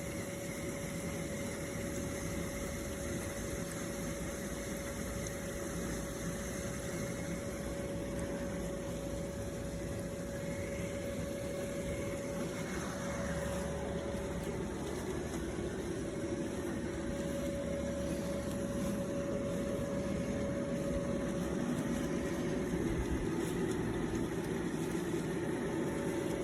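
Steady machine hum with one constant tone over an even rushing noise, growing slightly louder in the second half: typical of a pool pump running, which is what drives a suction pool cleaner.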